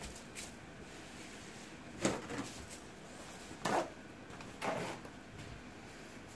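Three short handling noises, about a second apart, with a few faint clicks between them.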